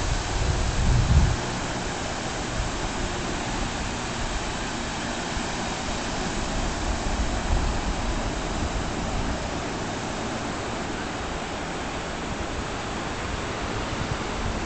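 Steady hiss of small waves breaking on a sandy beach. Wind buffets the microphone with a low rumble for the first second or so.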